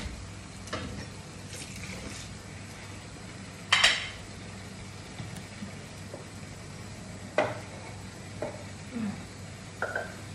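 Dishes and utensils being washed in a kitchen sink, clinking and clattering now and then, with the loudest clatter about four seconds in, while a wooden spatula stirs food in a frying pan. A steady low hum runs underneath.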